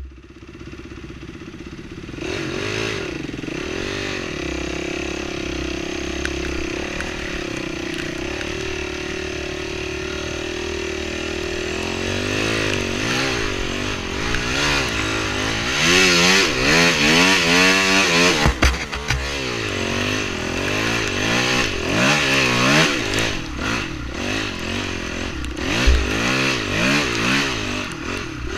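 Honda dirt bike's engine running steadily at first, then rising and falling in pitch as it is throttled on and off along a rough trail. A couple of sharp knocks from the bike hitting bumps are heard about two-thirds of the way in and near the end.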